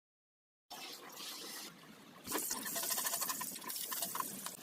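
Liquid noise, as of pouring or running liquid while cooking, with small clicks and clinks; it grows louder about two seconds in.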